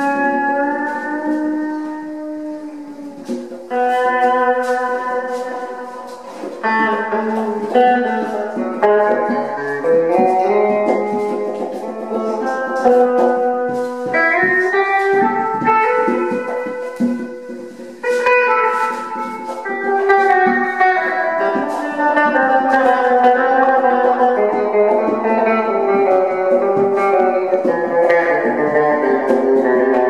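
Improvised guitar music with long held notes, several of which bend and glide in pitch, and a few sharp plucked attacks.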